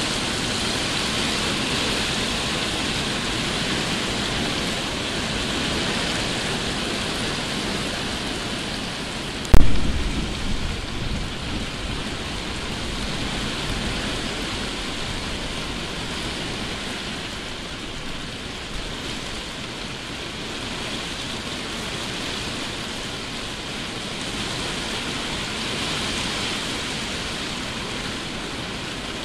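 Heavy rain pouring steadily. About ten seconds in, a sudden sharp thunderclap from a close lightning strike, the loudest sound here, rumbling away over the next few seconds.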